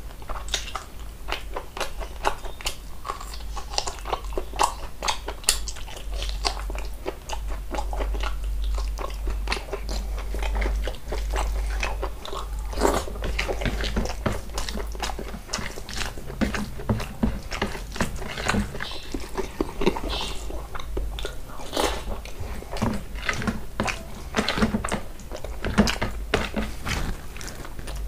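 Close-miked eating: a man biting and chewing mouthfuls of mutton curry and rice, a dense run of quick, irregular wet clicks from his mouth, over a steady low hum.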